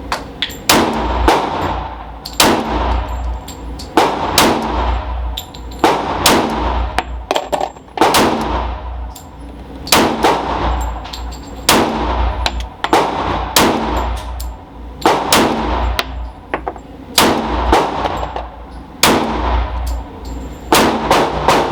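Glock pistol fired steadily, roughly one shot a second, about twenty shots in all, each crack ringing and echoing in an indoor range.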